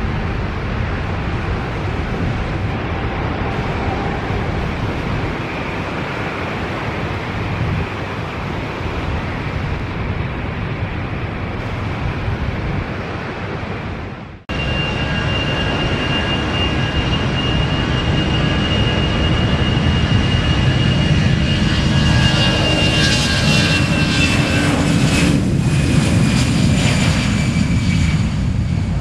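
Jet airliner engines running at take-off power: a steady rush, then, after a sudden break about halfway, a high engine whine that sinks slightly in pitch while the rush grows louder toward the end.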